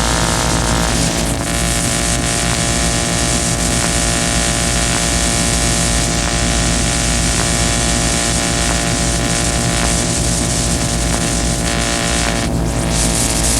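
Harsh noise music: a loud, unbroken wall of hiss over a stack of steady droning tones and a deep rumble.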